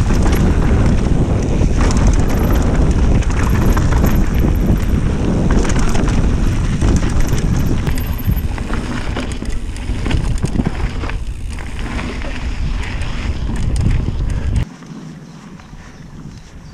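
Mountain bike descending a dirt trail at speed: wind buffeting the camera's microphone with a heavy rumble, tyre noise on the dirt, and frequent clicks and rattles from the bike over bumps. The wind rumble cuts off suddenly near the end, leaving quieter trail noise.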